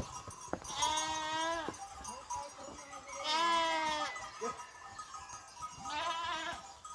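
Sheep bleating: three separate calls of about a second each, the middle one the loudest.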